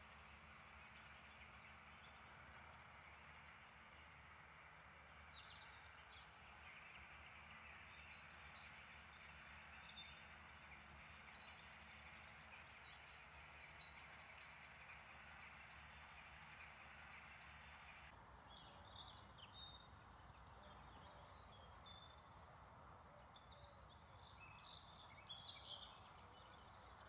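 Faint scattered bird calls over a low, steady outdoor rumble, all very quiet; the background shifts about two-thirds of the way through.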